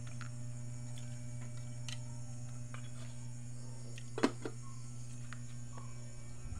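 Steady low hum with a faint high whine in a small room, a few light clicks, and one sharp knock about four seconds in followed closely by a softer one.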